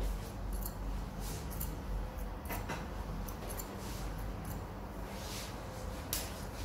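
Barber's scissors snipping hair: an irregular run of short, crisp snips, some in quick pairs.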